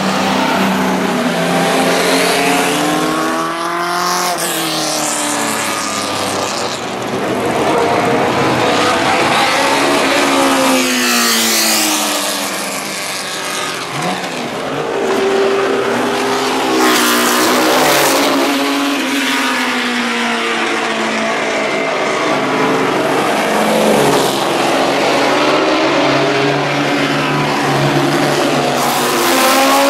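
Several racing car engines running hard as the cars lap and pass one after another, each engine's pitch climbing and then dropping as it goes by.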